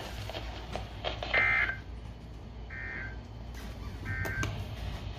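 EAS end-of-message data bursts from a NOAA Weather Radio broadcast: three short two-tone digital screeches about a second apart, the coded signal that closes a severe thunderstorm warning.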